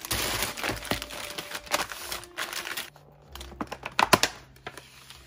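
Plastic grocery packaging crinkling and rustling as bagged produce is set down on a countertop, then a few sharp plastic clicks about four seconds in as a plastic strawberry clamshell is handled.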